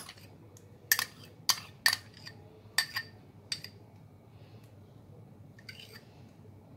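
A metal spoon and a glass bowl clinking against glass dessert cups as a thick semolina pudding base is spooned out: about half a dozen sharp, irregular clinks, most of them in the first four seconds.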